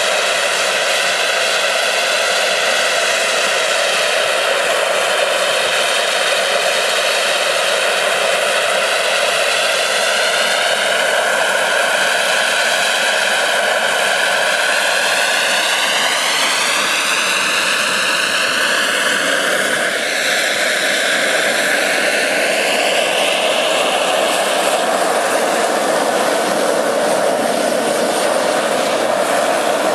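Graupner Agusta A119 model helicopter's JetCat turbine running with a steady high whine over rotor noise, its pitch gliding up and then down as the helicopter is brought in to hover and set down.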